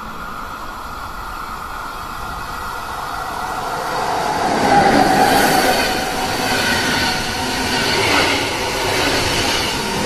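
Swiss Federal Railways electric passenger train passing close by: its rolling noise grows louder to a peak about halfway through, with a high steady whine over it.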